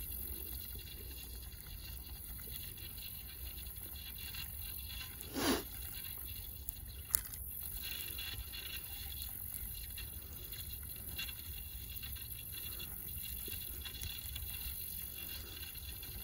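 Footsteps scuffing on sand and dry grass, over a steady low rumble. A brief sweeping sound about five seconds in is the loudest event, followed by a sharp click about two seconds later.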